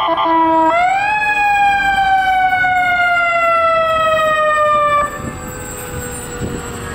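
Emergency vehicle's electronic siren: a fast yelp switches, a little under a second in, to a wail that rises sharply, then falls slowly for about four seconds and cuts off abruptly. Vehicle engine and traffic sound carry on after.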